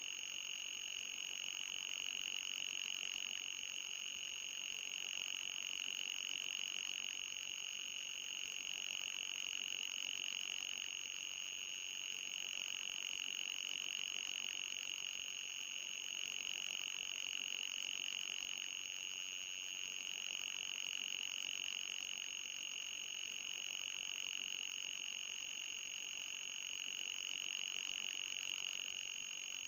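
Electronic anti-mosquito repellent tone: a steady, shrill high-pitched hum with a slight slow waver and a fainter, higher whistle above it. It is sold as ultrasonic, but this tone is audible.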